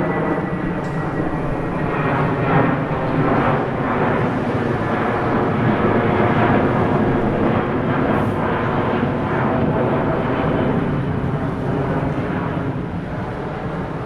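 Airplane jet engines running loud and steady, with a dense rushing noise and several steady engine tones, easing off slightly near the end.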